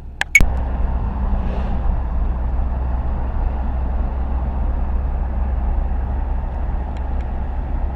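Car road noise heard from inside a moving vehicle: a steady low rumble with a hiss over it, starting after a short click about half a second in.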